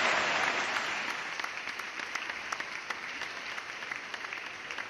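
Applause, loud at first and fading away over a few seconds, thinning out into a few scattered claps.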